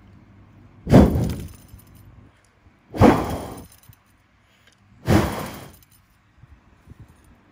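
Three short puffs of breath blown at a small metal spinner-lure blade to set it spinning, about two seconds apart; each is a loud gust of air noise on the microphone that dies away within a second.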